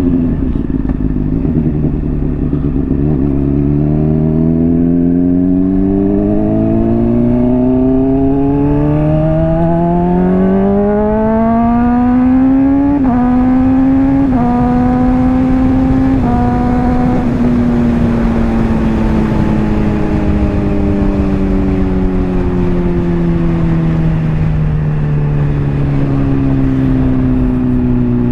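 Honda CBR600RR inline-four through a slip-on exhaust, accelerating hard with the pitch climbing steadily for about ten seconds, then three quick upshifts in succession. After that the engine slows gradually as the bike rolls off, and picks up again near the end.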